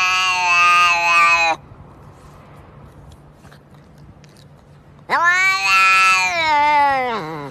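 A domestic cat meowing in two long, drawn-out calls. The first ends about a second and a half in; the second starts about five seconds in, rises at its start and falls in pitch as it ends.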